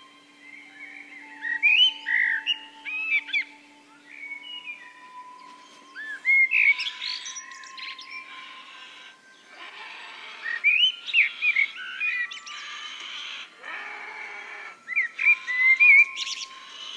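Birds chirping and twittering in short quick clusters over background music with long held notes.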